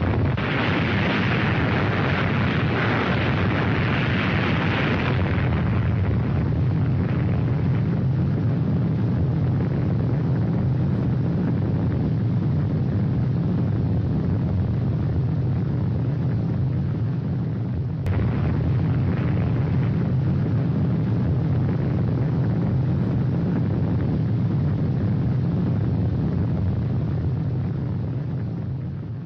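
Rumble of a huge explosion: a deep, steady rumble that is harsher and crackling for the first five seconds or so, then rolls on evenly and fades away at the very end.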